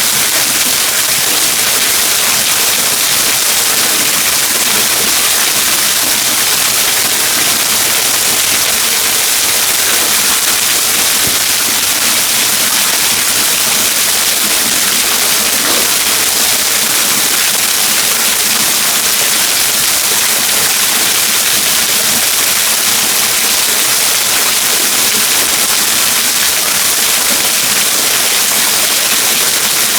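Waterfall rushing: a loud, steady hiss of falling water that does not change.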